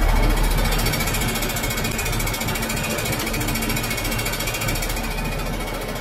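Farm tractor's diesel engine running with a fast, even clatter over a steady low hum.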